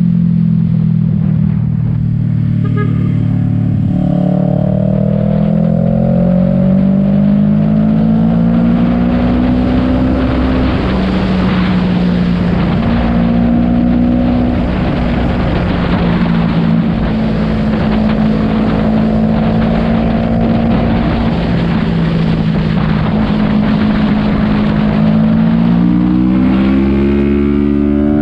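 Sport motorcycle engine running under way at road speed, with wind rushing over the microphone. The engine note climbs gradually over the first ten seconds, holds fairly steady, then rises again near the end as the bike accelerates.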